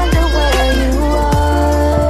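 Background electronic music: a wavering lead melody over steady bass, with two deep, falling kick-drum hits.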